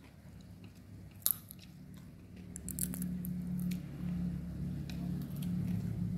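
A person slurping rice vermicelli noodles and chewing, with small clicks. There is a single sharp click about a second in and a few crackles near the middle. A low steady hum comes in about halfway through.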